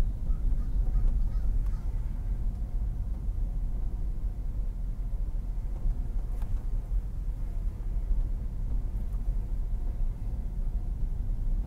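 Steady low rumble of a car driving slowly on a residential street, heard from inside the cabin, with one faint click about six seconds in.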